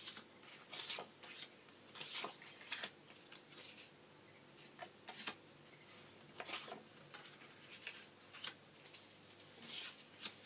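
Thin paper journaling cards being handled and laid out one by one: irregular short, crisp paper rustles and soft slaps, quieter for a stretch in the middle.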